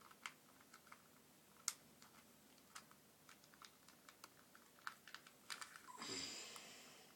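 Plastic 2x2x3 cuboid puzzle being turned by hand: scattered faint clicks as its layers are twisted, with a louder rustling swish about six seconds in.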